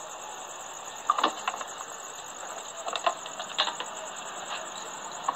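A few sharp metal clicks and knocks from hand work on the bolts of a car's radiator support bracket, over a steady high, pulsing chirr of insects.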